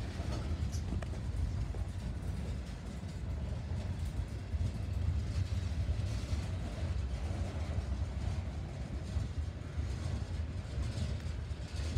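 Freight train cars, covered hoppers and tank cars, rolling past on the track: a steady low rumble of steel wheels on rail, with a couple of light clicks about a second in.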